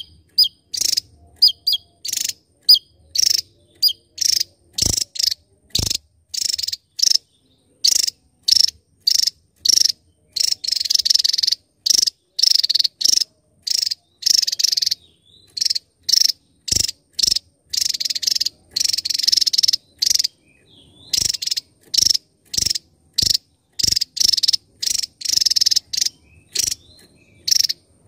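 Javan tesia singing: a rapid series of short, very high, buzzy bursts, about two a second, broken by a few longer runs lasting a second or more.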